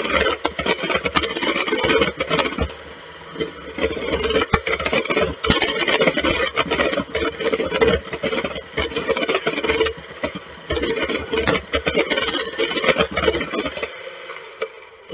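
Electric hand mixer running steadily, its beaters whipping egg whites and sugar toward stiff peaks in a stainless steel bowl, with frequent clicks of the beaters against the metal; the motor stops near the end.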